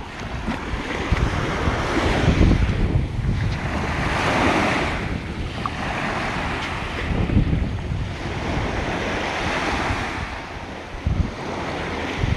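Ocean surf breaking and washing up the beach in swells that rise and fade every few seconds, with wind rumbling on the microphone.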